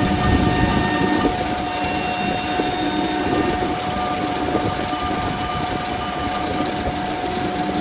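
Both router spindles of a dual-spindle CNC nesting machine running and cutting circles into a wood-based panel: a steady spindle whine over the rough noise of the bits cutting.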